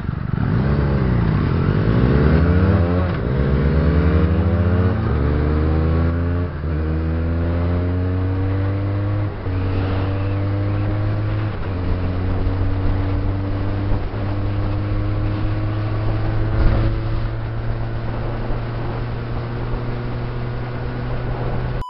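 Benelli TNT300's 300 cc parallel-twin engine accelerating up through the gears. The revs climb in each gear and drop at each upshift, with the climbs growing flatter through the higher gears, until it holds a steady pitch in sixth for the last several seconds. There is a brief thump about three-quarters of the way through.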